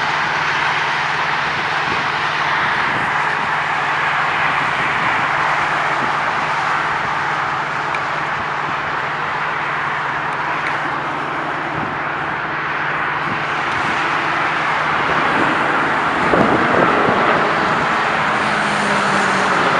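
Airbus A330 jetliner on its landing approach, its engines giving a steady rushing jet noise with a low hum underneath, swelling slightly near the end.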